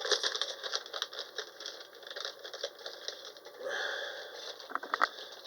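Hands unwrapping and handling the packaging of a small boxed specimen: a quick run of small clicks, rattles and rustles, with a few sharper clicks near the end.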